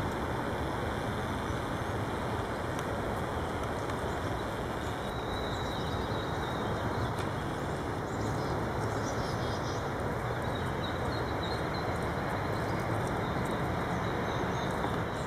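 Steady low outdoor rumble of background noise, like distant road traffic, with faint high bird chirps now and then in the middle.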